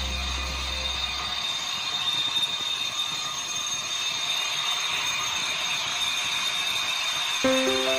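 Metal lathe running while turning a cast iron pulley: a steady high whine over an even hiss. Background music comes back in near the end.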